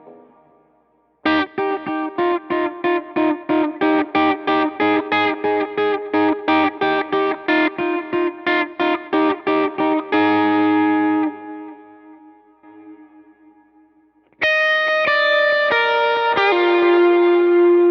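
Electric guitar played through an amp-modelling effects processor with some drive: a steady run of rapidly repeated picked notes, about four a second, then a chord left ringing until it fades. After a short gap comes a slower line of sustained single notes, ending on a long held note.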